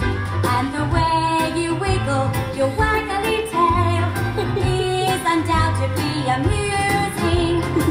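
Musical theatre song: singing over band accompaniment, with a steady bass line and a drum beat.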